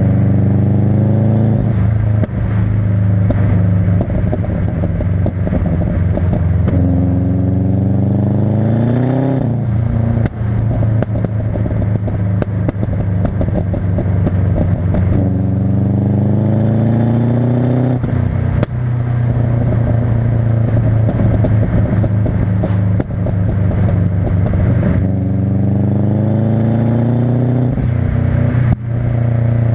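Subaru Impreza's turbocharged flat-four engine revved four times, the pitch climbing and dropping back each time, with crackling pops and bangs from the exhaust throughout.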